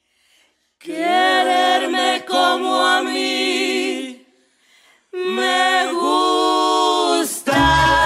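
Several voices singing a cappella in harmony: two held phrases with a short break between them. Near the end a full band with bass comes in under the voices.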